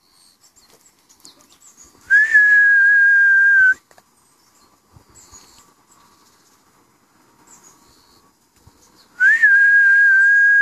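Two long whistle blasts, each held at one steady high pitch for about a second and a half after a brief upward flick at the start, several seconds apart: a whistled recall signal to hunting dogs.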